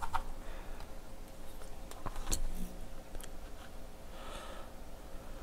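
Quiet handling noises as a circuit board and tools are moved about, with a few short sharp clicks, the loudest a little past two seconds in.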